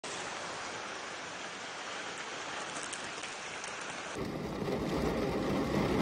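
Steady rain falling, an even hiss. About four seconds in it turns fuller and grows louder, with a low rumble underneath.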